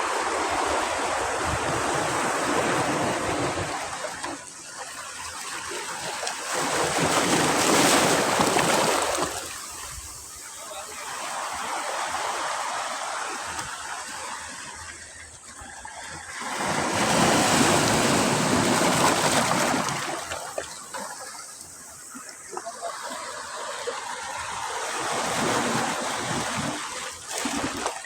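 Sea waves breaking and washing up a beach, swelling and fading in five surges about five seconds apart.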